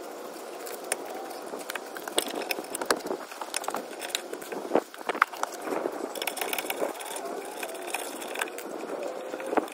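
Socket ratchet clicking in runs as the 15 mm caliper mounting bracket bolts are turned out, with scattered metal-on-metal clinks.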